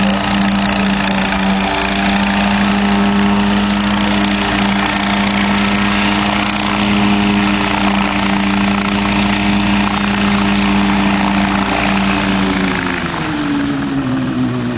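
Engine and coaxial rotors of a single-seat ultralight coaxial helicopter, running steadily while it hovers. The engine note drops near the end as the helicopter comes down close to the ground.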